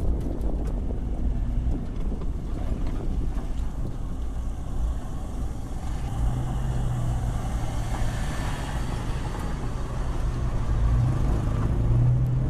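Vehicle engines running at low speed as a car and motorcycles crawl over a rutted, muddy dirt road, over a constant low rumble. About halfway through, a steady engine hum sets in and grows louder near the end.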